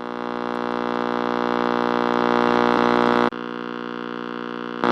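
Radio sound effect: a steady electrical hum, a buzz with many overtones. It swells slowly louder, then drops suddenly to a quieter level about three seconds in and keeps going.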